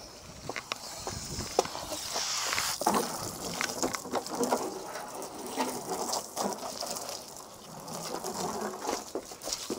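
Footsteps on a wet concrete driveway, with scattered light knocks and splashes of water and a brief hiss about two seconds in.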